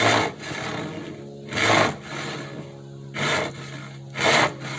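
Hand saw cutting into a board at the start of a cut: four strong push strokes, each a short rasp, with quieter strokes between them.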